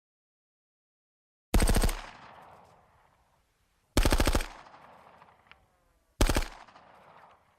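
Machine-gun fire: three short bursts of rapid shots about two seconds apart, each trailing off in an echoing tail.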